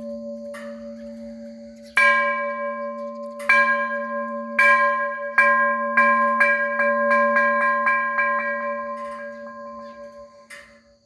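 A large metal bell struck over and over, each stroke renewing a long ringing tone. The strokes come faster and faster and grow softer, then the ringing fades out.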